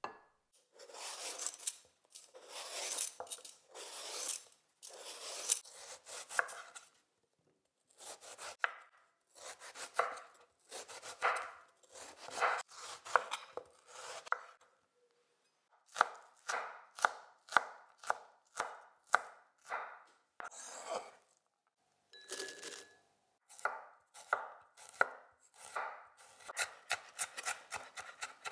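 Kitchen knife cutting on a bamboo cutting board. It starts with long scraping strokes as the eggplant is peeled, then comes a run of crisp cuts through the peeled eggplant, about two a second. Near the end, faster and lighter chops slice a garlic clove.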